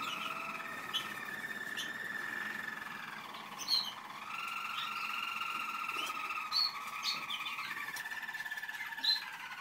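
German Roller canaries singing together: long, steady rolling trills held at several pitches at once, each shifting pitch every few seconds, with short higher chirps breaking in a few times.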